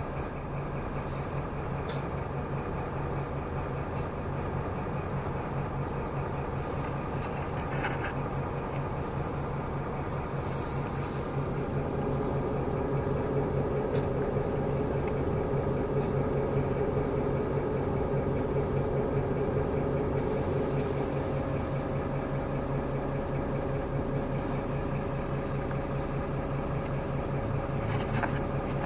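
Inside a city bus on the move: the engine and drivetrain run with a steady low drone, a higher hum swells through the middle and fades again, and a few light rattles come from the cabin.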